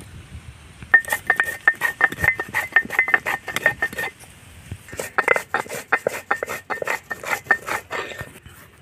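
Stone roller pounding and crushing spices on a flat stone grinding slab (sil-batta): a rapid run of stone-on-stone knocks, a short pause about halfway, then a second run.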